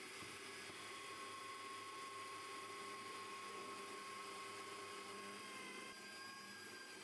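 Bosch bench drill press motor running with a steady whine while boring holes in plywood; the pitch dips slightly near the end.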